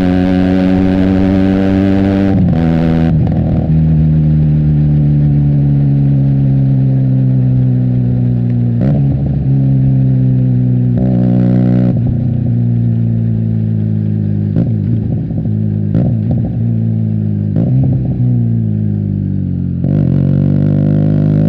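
Benelli TNT 300 parallel-twin with an aftermarket Austin Racing exhaust, its engine note falling slowly as the bike rolls off and slows on the overrun, with several short crackling bursts from the exhaust along the way. Near the end the revs pick up again as the throttle opens.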